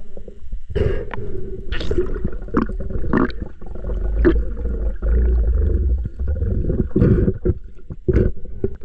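Water splashing and gurgling in irregular bursts, over a faint steady hum.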